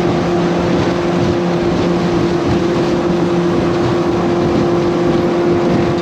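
Motorboat engine running steadily with an even tone, under a loud rush of noise.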